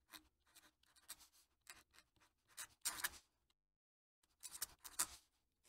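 A fountain pen nib writing on paper: a run of short, faint scratchy strokes with brief pauses between them, the loudest strokes about three seconds in and again about five seconds in.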